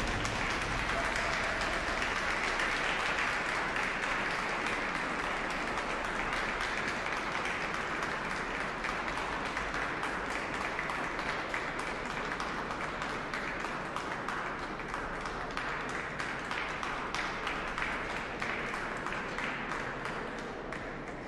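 Audience applauding in a large stone church, heard from high up in the gallery; the clapping slowly dies away.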